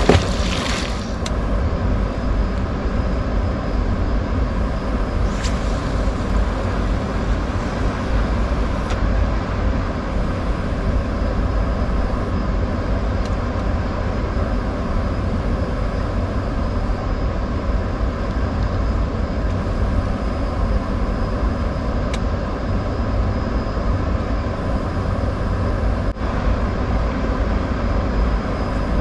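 A small fish splashes into the shallows as it is released near the start. After that a steady low rumble runs on unbroken.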